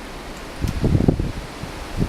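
Blizzard wind blowing steadily, with a gust striking the microphone about half a second in that rumbles and buffets for most of a second.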